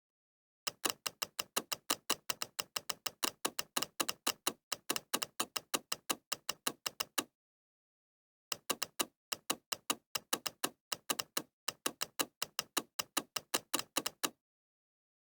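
Computer mouse clicks, the click sound effect that the Bandicam screen recorder adds, repeated rapidly and evenly in two long runs with about a second of silence between them.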